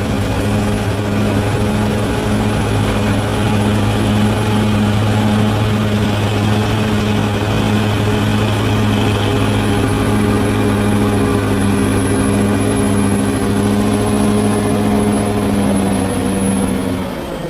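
Bulldozer's diesel engine running steadily under load with a deep, even thrum, dropping in pitch and level near the end as the revs come down.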